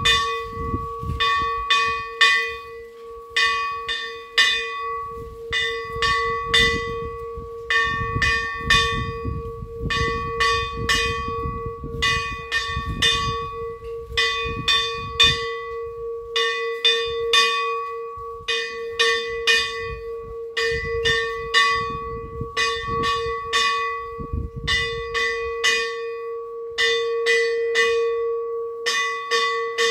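Temple bell rung continuously during puja, in quick flurries of strikes about once a second over a steady ringing tone.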